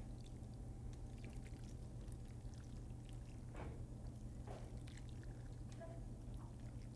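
Faint wet sliding and plopping of chunky tomato marinara sauce poured from a metal sauté pan onto a plate of mussels and pasta, over a steady low hum.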